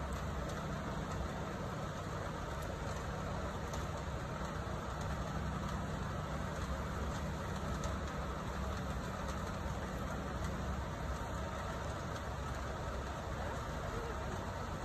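A steady low mechanical hum, like an engine or machine running at idle, over a faint even hiss.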